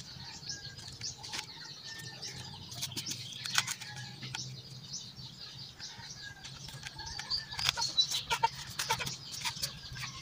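Soft rustling and small clicks of plastic and fishing line being handled on a plastic-wrapped bottle float, with birds calling faintly in the background.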